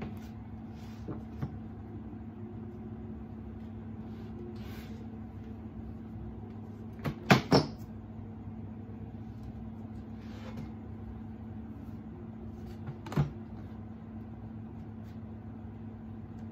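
Books, photo albums and boxes being handled and set down on a desk: a few soft rustles and knocks, the loudest a quick run of three knocks about seven seconds in and another single knock about thirteen seconds in. A steady low hum runs underneath.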